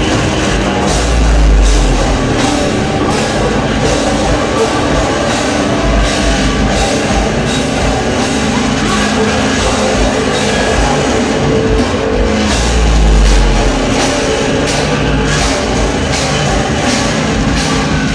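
Hardcore punk band playing live: distorted guitars, bass and a drum kit with steady cymbal hits. Two very deep bass drops, each lasting about a second, come about a second in and again about two-thirds of the way through.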